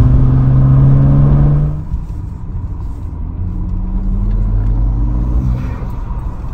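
BMW N54 twin-turbo 3.0-litre inline-six accelerating under boost, heard inside the cabin, its note rising slightly. About two seconds in the engine note drops sharply in loudness as the load comes off. It keeps running more quietly and climbs in pitch again near the end.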